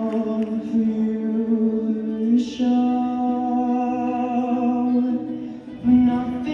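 Music with a singing voice holding long, steady notes, changing note about two and a half seconds in and again near the end.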